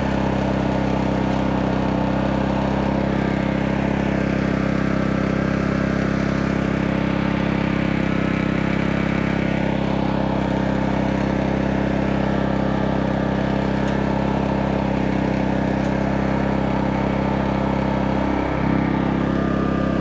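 Petrol engine of an MXR4500i inverter generator running steadily under the load of a MIG welder on its maximum setting. Its pitch shifts briefly near the end.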